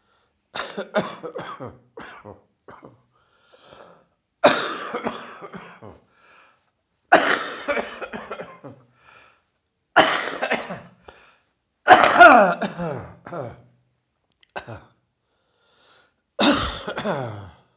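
A person with a heavy chest cold coughing in about six harsh, chesty bouts a couple of seconds apart. Two of the bouts trail off in a falling, wheezy tone.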